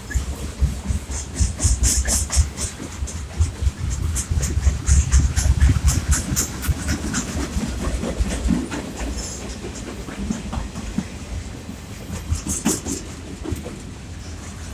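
CN freight train rolling past: a steady low rumble of the cars with wheels clattering over the rail joints and short, sharp high metallic squeaks and clicks throughout.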